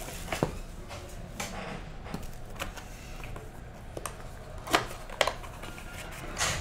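Hands handling a cardboard trading-card hobby box and prying open its lid flap: scattered taps, scrapes and sharp cardboard clicks, the loudest a pair just under five seconds in.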